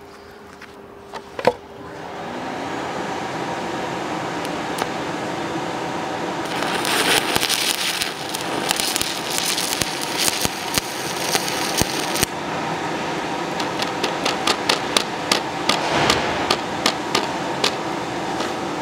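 Aluminum stick electrode arc welding: a sharp strike about a second and a half in, then a steady crackling hiss as the arc burns. It grows more spattery, with many sharp pops and cracks, through the second half.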